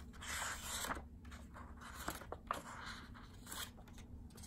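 Pages of a hardcover picture book being turned and handled by hand: several papery swishes and rustles, with a few light taps in between.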